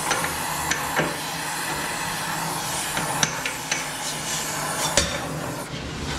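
Gas torch hissing steadily as it heats a thin aluminum fixture so that it swells and releases the cylinder sleeve, with several sharp metal clinks and knocks as the sleeve is worked loose on a puller rod. The loudest knock comes near the end, and the hiss thins after it.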